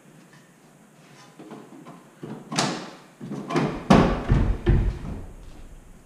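Knocks and clatter from work on a car's rear disc brake. A sudden sharp hit comes about two and a half seconds in, then a quick run of heavy knocks about a second later.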